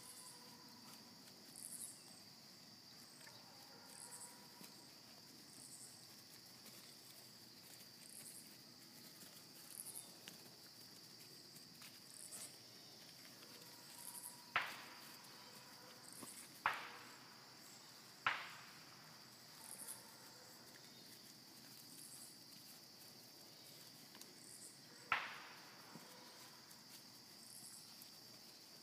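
Insects trilling in a faint, steady high drone, with a brighter chirp repeating about every second and a half. Four sharp knocks stand out: three close together about halfway through and one more near the end.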